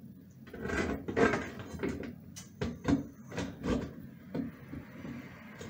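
A light fixture's diffuser scraping and clicking against the fixture's metal housing as it is twisted to screw it on. It comes as a series of irregular scrapes with a few sharp clicks.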